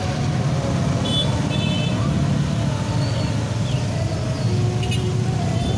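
Many motorcycle and scooter engines running together in a steady low rumble as traffic moves off across a railway level crossing, with two short horn beeps about a second in.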